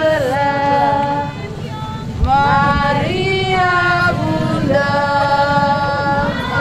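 A group of women and children singing a hymn together, with long held notes.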